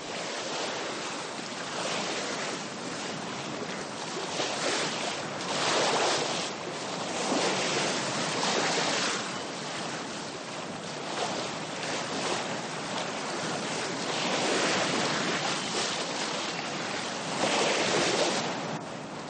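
Sea rushing along the hull of a sailing ship under way before the wind, with wind blowing across the deck; the wash swells and falls every two to three seconds.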